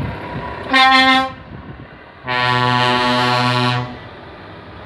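A truck's air horn sounds twice: a short, loud toot about a second in, then a longer blast of about a second and a half with a second, deeper tone sounding together with the first.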